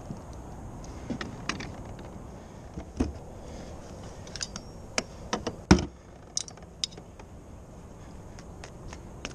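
Fishing gear being handled on a plastic kayak: scattered light clicks and rattles, with a single louder knock a little past halfway.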